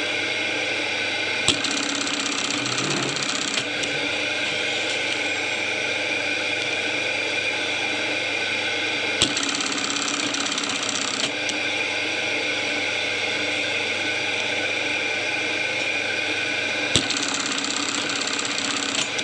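Juki 372 (MB-372) industrial button-sewing machine, its motor running with a steady hum. Three times, about eight seconds apart, it engages with a sharp click and runs a rapid stitching cycle of about two seconds, sewing on a button.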